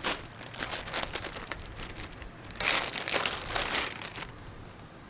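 Plastic packaging crinkling and rustling as it is handled, in uneven bursts that are loudest about three to four seconds in.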